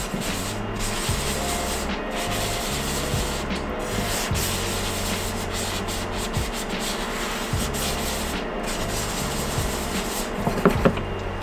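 Kosher salt being scrubbed around a hot carbon steel pan with a towel: a steady rubbing, scraping noise as the salt scours off stuck-on cooking residue.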